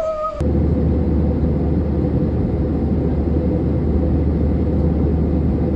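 Steady cabin noise of a jet airliner in flight: a low rumble and rush of air with an even hum. It cuts in suddenly about half a second in.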